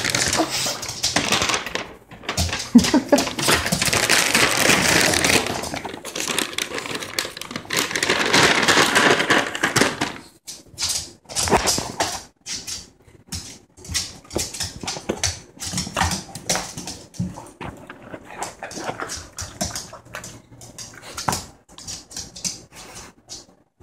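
Small dog whining and its claws clicking on a laminate floor as it jumps up begging for a treat. Dense rustling fills roughly the first ten seconds.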